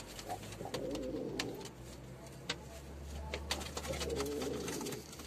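Domestic pigeon cooing twice: a low, rolling coo about a second in and another about four seconds in, with a few faint sharp clicks in between.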